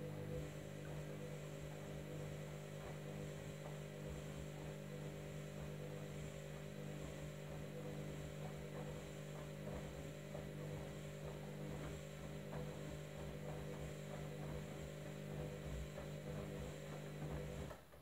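Candy front-loading washing machine's drum motor humming steadily as it tumbles a sudsy load mid-wash. It comes up to speed at the start and cuts off suddenly near the end as the drum stops for a pause.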